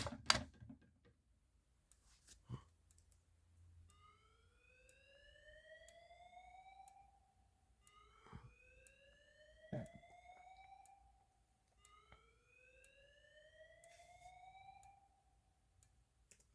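A click, then a faint whoop alarm tone from a speaker of a fire alarm system: three slow rising sweeps, each about three seconds long and about four seconds apart. A few sharp clicks fall in between.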